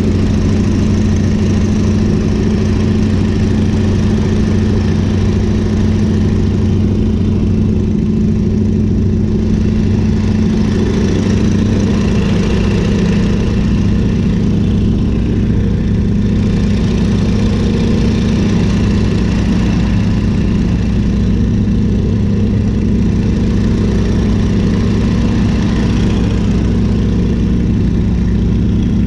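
PT-17 Stearman biplane's Continental R-670 seven-cylinder radial engine running steadily at cruise power, with wind rush in the open cockpit. It is a loud, even drone that does not change.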